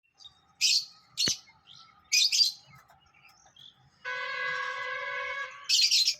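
Pet lovebirds and a cockatiel giving short, shrill chirps in four quick bursts. Past the middle, a steady tone with many overtones holds for about a second and a half.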